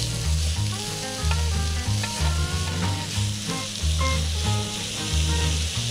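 Raw pork belly sizzling on a hot griddle pan over a portable gas stove, a steady hiss of frying fat. Background music with a stepping bass line plays under it.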